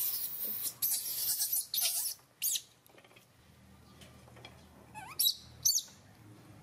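Baby macaques making high-pitched squeaks and chirps, with two short, sharp squeals near the end. Scratchy rustling fills the first two seconds or so.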